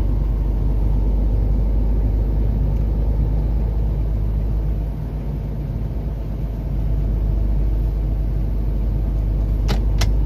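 Heavy truck's diesel engine running steadily, heard from inside the cab, with two sharp clicks near the end.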